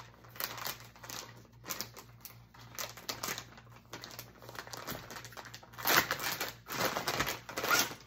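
Clear plastic packaging bag crinkling and rustling as it is opened by hand and the organizer pouch is slid out of it, with louder bursts of crinkling about six seconds in and again near the end.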